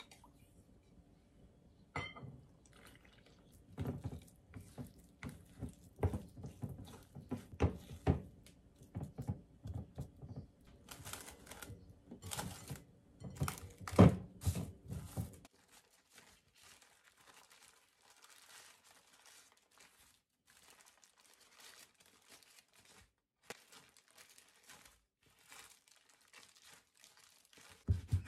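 A metal spoon clinking and scraping in a ceramic bowl while mixing rice flour and water into dough. Then plastic cling wrap crinkles as it is stretched over a glass bowl, with a sharp knock about halfway through, and only faint rustling after that.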